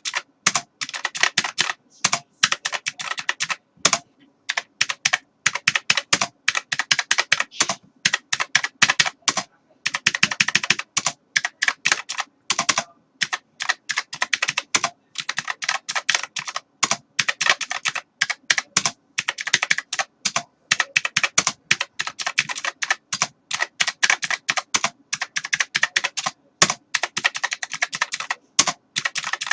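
Computer keyboard typing: rapid runs of keystroke clicks, broken now and then by brief pauses.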